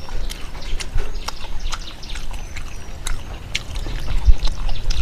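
A person chewing and smacking their lips while eating a wet fish curry, with many small wet mouth clicks at irregular intervals.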